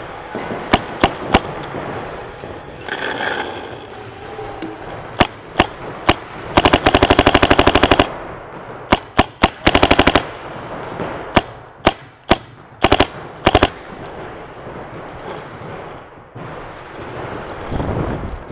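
Paintball marker firing: scattered single shots, then a rapid string of more than ten shots a second lasting about a second and a half near the middle, a shorter rapid string soon after, and a few more single shots.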